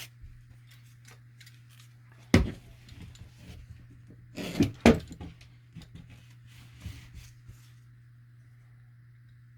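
Hands working drywall mesh tape against a sheetrock wall patch: a sharp knock about two seconds in and a quick pair of knocks near the middle, with light rustling and ticking between them. A steady low hum lies underneath.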